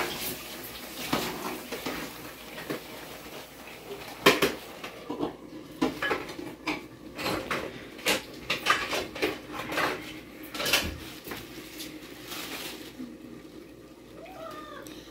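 Metal utensils and dishes clinking and knocking irregularly, with one louder knock about four seconds in.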